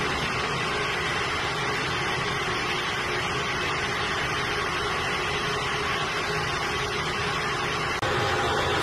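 Steady rushing noise of wind and ship machinery on a warship's open deck, even and unbroken, with a sudden brief drop about eight seconds in.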